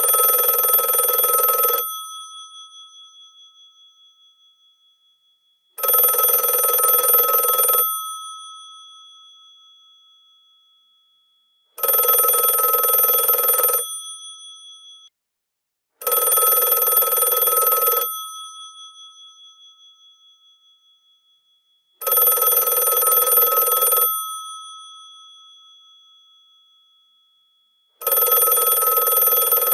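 The twin-gong electromechanical bell of a GPO 746 rotary telephone ringing in bursts of about two seconds, each trailing off as the gongs ring down. It rings six times, roughly every five to six seconds.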